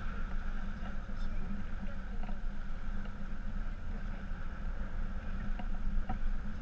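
Steady rumbling noise of a sailboat underway in choppy water: wind buffeting the microphone over water rushing along the hull.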